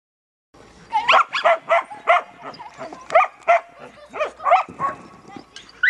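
Croatian Sheepdog barking excitedly while running an agility course: short, high barks in quick succession, two or three a second, starting about half a second in.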